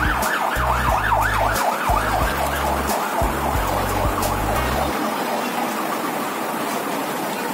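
Siren yelping in quick rising-and-falling sweeps, about four a second, over deep bass notes. Both fade out about five seconds in.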